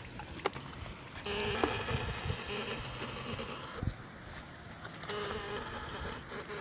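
Homemade platina-type electric fish shocker (PSS semi) buzzing with a steady high hum while its electrodes are in the water. The buzz is switched on for about two seconds, then again briefly near the end, with a few sharp clicks in between.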